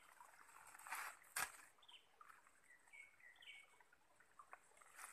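Near silence with faint bird chirps, several short calls sliding up and down in pitch, and one sharp click about a second and a half in.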